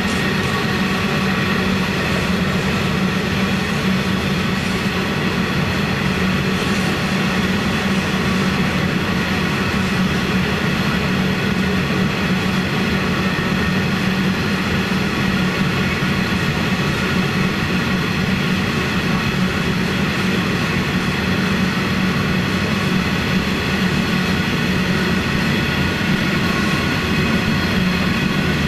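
Iron ore wagons of a very long freight train rolling past at close range: a steady rumble of wheels on rail with a constant high ringing whine over it.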